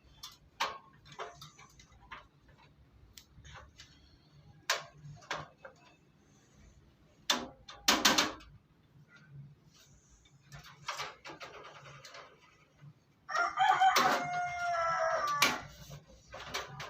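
Scattered clicks and knocks of a desktop computer's metal case and drive parts being handled and fitted together, with a louder clatter about halfway through. Near the end a rooster crows once in the background, a long call of about two or three seconds.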